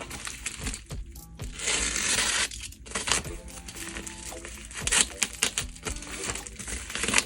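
Packaging crinkling and crackling as it is handled and opened, loudest about two seconds in, with scattered sharp clicks, over background music.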